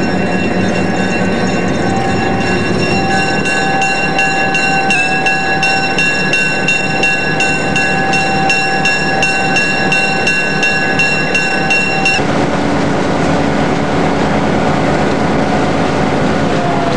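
EMD diesel locomotive under way, heard from its cab: engine and wheels on the rails run throughout. Over them a ringing warning signal sounds steadily with rapid even clicks, about three a second, and cuts off abruptly about twelve seconds in.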